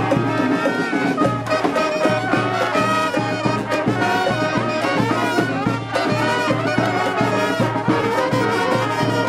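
Brass street band playing a lively tune, horns over a steady drum beat.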